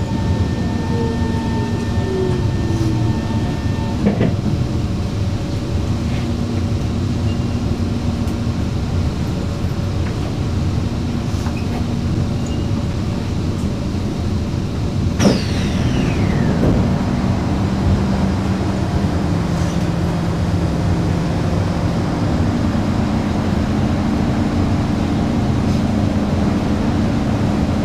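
Interior of an electric MRT train braking into a station: running rumble with the traction motor whine falling in pitch, a sudden sharp sound with a quick falling whistle about fifteen seconds in as the train comes to a stop, then the steady hum of the standing train.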